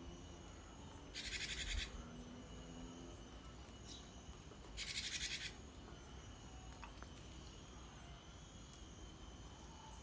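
A caged gelatik batu (cinereous tit) gives two harsh, buzzy churring calls, each well under a second long: one about a second in and one about five seconds in.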